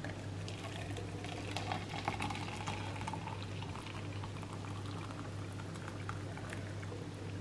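Hot water pouring in a steady stream from an electric kettle into a plastic cup, filling it.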